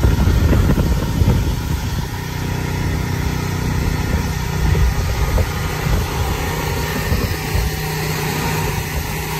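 Gusty wind buffeting the phone's microphone in heavy rumbles. Under it, from about two seconds in, a generator engine runs at a steady pitch.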